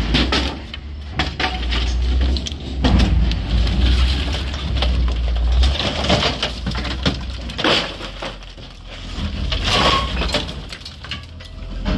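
Renovation debris clattering, cracking and breaking in irregular knocks, as a load of junk is dumped. A low engine rumble runs under the first half and drops away a little before the middle.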